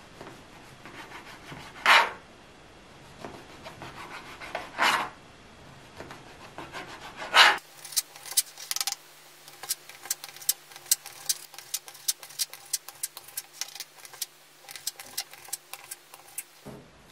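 Kitchen knife sawing through soft white sandwich bread on a plastic cutting board, with three louder rasping strokes in the first half. About halfway through it turns to quick chopping, the blade tapping the board several times a second as the bread is cut into strips and cubes.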